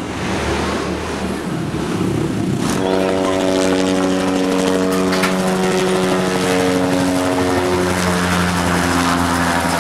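Light helicopter flying low overhead, its rotor and engine noise building and then settling, about three seconds in, into a loud steady drone with a pitched whine.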